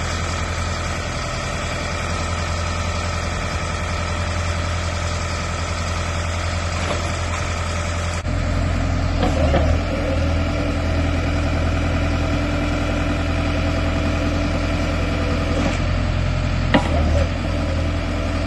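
Engine of a BOTEC-Scheitza RDBS drilling rig running steadily at idle, with a low hum. The tone shifts abruptly about eight seconds in, and there is one short sharp click near the end.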